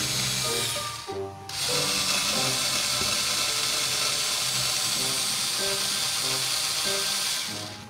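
Tuoye cordless screwdriver motor running as it drills into wood, with a steady high hiss. It cuts out briefly about a second in, then runs on until just before the end. Background music plays underneath.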